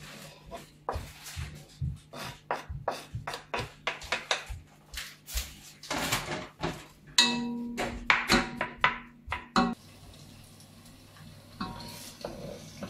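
Wooden spoon knocking and scraping against a cutting board and the rim of a cooking pot as chopped onion is knocked in: a quick, irregular run of sharp knocks for nearly ten seconds. After that the knocking stops and a soft, steady sizzle of onion frying in oil takes over.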